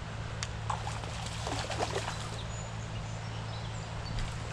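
Creek water flowing and rippling steadily around the wading angler, with a few faint high chirps.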